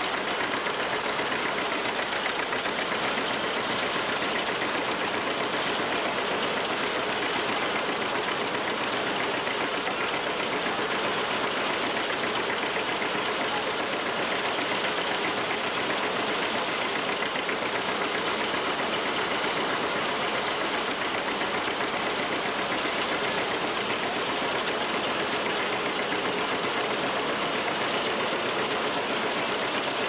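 Belt-driven threshing machine running steadily as rice bundles are fed into its threshing cylinder, making one continuous, even mechanical din.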